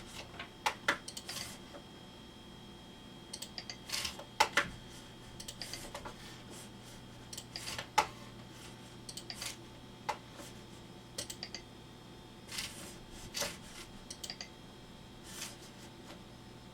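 Computer mouse clicking at irregular intervals, single clicks and short clusters, over a steady low hum.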